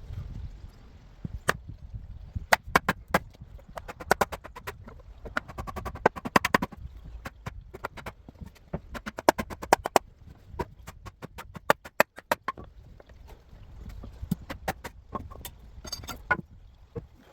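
Hand tools striking and working a piece of ash wood: a string of sharp, irregular knocks and taps, coming in quick runs at times, with pauses between.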